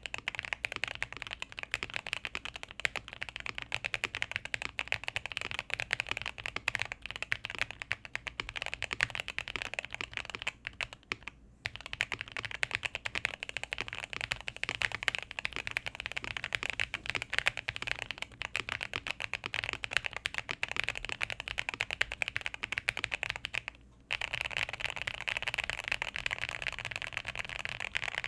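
Fast, continuous typing on custom mechanical keyboards, a dense stream of keystroke clacks. It breaks off briefly twice, about eleven seconds in and near the end, and after the second break the typing sounds fuller and deeper, as if on a different board.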